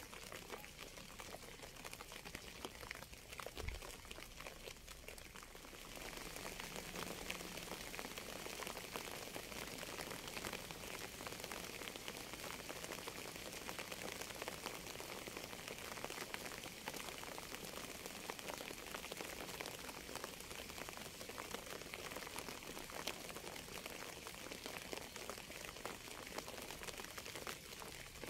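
Steady rain, a dense even patter of drops; it turns a little louder and hissier about six seconds in.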